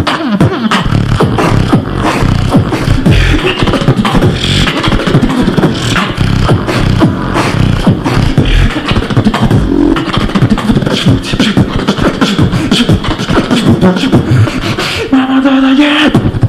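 Beatboxing into a handheld microphone: a fast, dense run of mouth-made kick, snare and click sounds over deep bass. A held hummed bass tone comes in shortly before the end.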